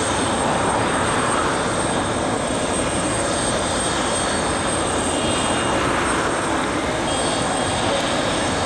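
Jet aircraft engine noise, a loud, steady rushing sound with no breaks.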